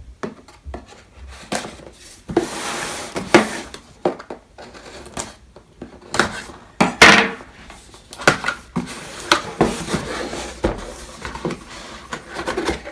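A knife cutting open a box, then the box being opened and handled: a run of scrapes, knocks and clicks, with a few longer scraping strokes.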